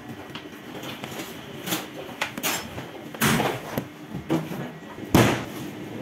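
Dull thuds and knocks of sourdough dough being handled on a stainless steel work table, the loudest a little after five seconds in as a piece of dough is dropped onto the table.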